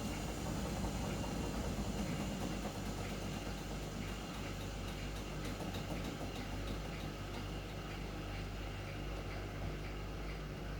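Hotpoint WMA0863 washing machine running with a steady motor hum as the drum turns, and a faint, short squeak repeating at regular intervals.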